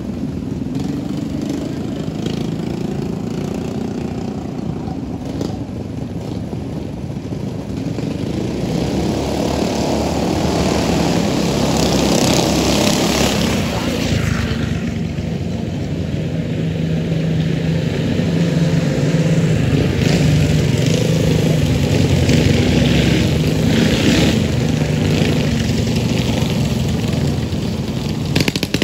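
Mini bike engines running hard during a dirt drag race, getting louder from about eight seconds in and then holding a steady high-revving drone.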